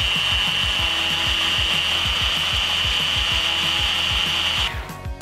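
Immersion blender's chopper attachment running at speed, grinding almond flour and powdered sugar together into a finer powder. A steady high-pitched motor whine with a rushing noise that cuts off near the end.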